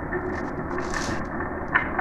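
Marbles rolling along a marble run track: a steady rolling rumble with a few faint clicks, and a sharper click near the end.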